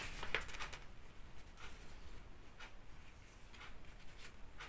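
Paper leaflet rustling softly as it is handled and its folded pages are turned, in several short rustles.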